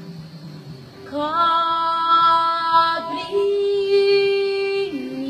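A female voice singing unaccompanied, entering about a second in with long held notes: a sustained note, a higher one, then a lower one, the slow opening of a worship song.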